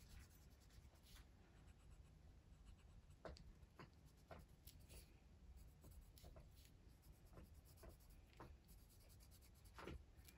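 Faint scratching of a sharpened oil-based colored pencil lightly stroking across paper, in short irregular strokes.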